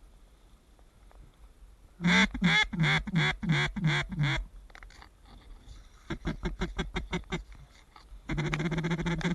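Duck call blown in a series of about seven loud quacks, then a quicker run of short notes a couple of seconds later, and one long held note near the end.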